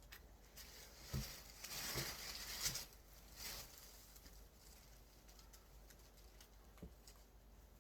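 Faint rustling of clothing fabric being handled and turned over, with a few soft bumps in the first couple of seconds, then little more than low hiss.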